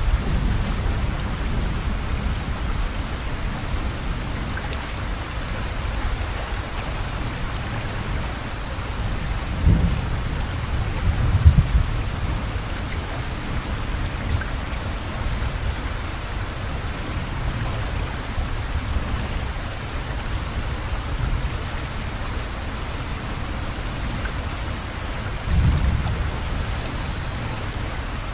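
Steady rain falling, a dense even hiss, with a few short low rumbles about ten, twelve and twenty-six seconds in.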